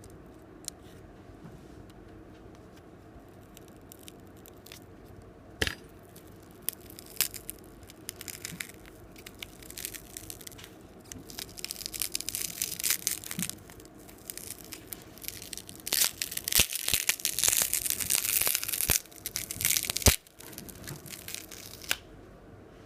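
Small repair tools scraping, clicking and prying against a smartphone during disassembly, with bursts of scraping and tearing noise. The noise thickens through the middle and is loudest about two-thirds of the way in, with sharp clicks scattered throughout.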